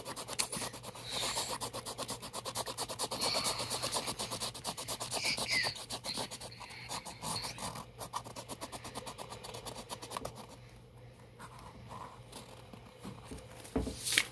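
Marker scribbling rapidly back and forth on sketchbook paper, a fast run of scratchy rubbing strokes that thins out about ten seconds in. A single sharp knock near the end.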